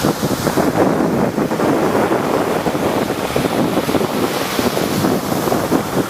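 Rough sea surf: waves breaking and churning without pause, with wind buffeting the microphone.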